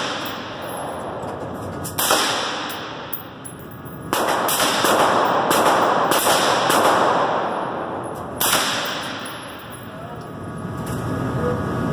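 Suppressed rifle firing at an indoor range: sharp reports, each trailed by a long echo off the range walls. Single shots come about 2 s and 8.5 s in, with a quicker string of shots about two a second between 4 and 7 s.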